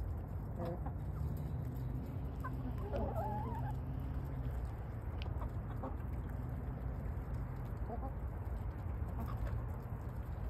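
Flock of hens clucking softly as they feed, with a longer wavering call about three seconds in, over a steady low hum.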